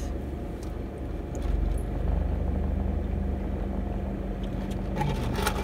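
Car engine idling, heard from inside the cabin: a steady low hum, with a second steady tone joining about two seconds in.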